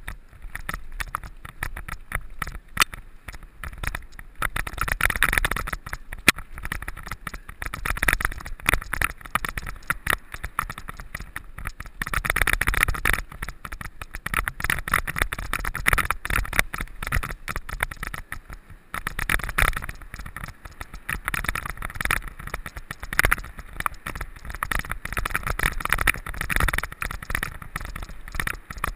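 Mountain bike ridden over rough ground, its frame and drivetrain rattling with a constant stream of small irregular knocks, and a hiss of tyre noise that swells and fades every few seconds.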